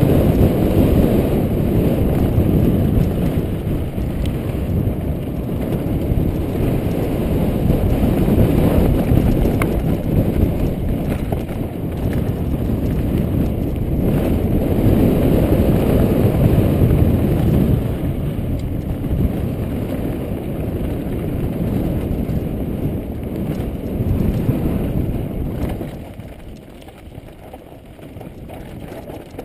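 Downhill mountain bike riding fast over a loose gravel and rock trail: tyres grinding over the stones with heavy wind rush on the camera's microphone, all low and continuous. It gets quieter a few seconds before the end as the pace eases.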